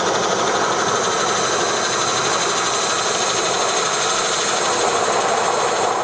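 Milwaukee power metal shears running steadily as the blades cut through oiled galvanized steel sheet.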